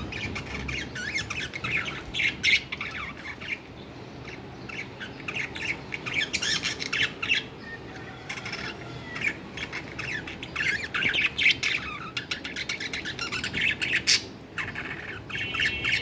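A group of caged budgerigars chattering and warbling: a dense, continuous stream of quick, high chirps and squawks, with a few sharp clicks. A steady high-pitched tone comes in near the end.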